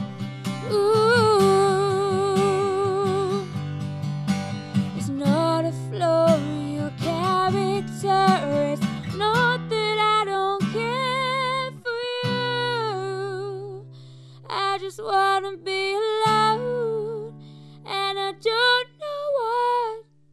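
A woman sings a slow song, holding long notes with vibrato, and accompanies herself on acoustic guitar. In the second half the sung phrases come shorter, with gaps between them.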